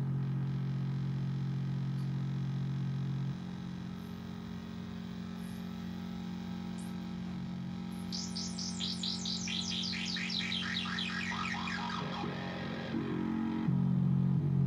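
DIY modular synthesizer playing a steady low drone that drops to a quieter hum about three seconds in and comes back loud near the end. From about eight seconds, a fast run of short downward chirps, about five a second, steps down from high to low pitch over some five seconds as the knobs are turned.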